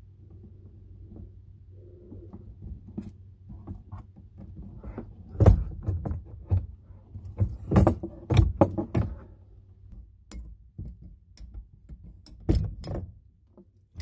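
Irregular clicks, taps and knocks of PEX pipe, fittings and tools being handled, with the loudest knocks about five and a half seconds in, around eight seconds in, and near the end.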